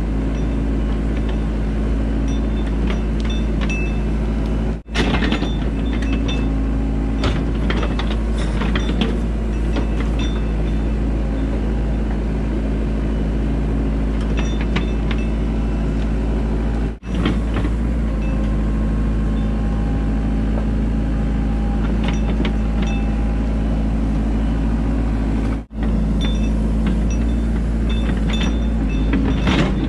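Engine running steadily under load during excavation, with scattered scrapes and clanks of digging. The sound breaks off briefly three times.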